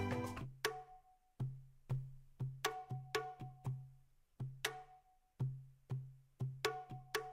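Background music: a sparse, syncopated percussion beat of short wood-block-like clicks with a low bass note on each hit, after a fuller passage fades out in the first second.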